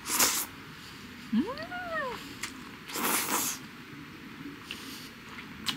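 A person slurping jjajangmyeon noodles off chopsticks in two short slurps, one at the start and one about three seconds in. Between them is a short hum of pleasure that rises and then falls.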